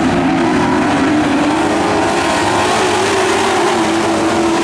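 Engines of a pack of dirt-track pro stock race trucks running at high throttle, several engines layered together. Their pitch rises through the first couple of seconds as the trucks accelerate, then holds.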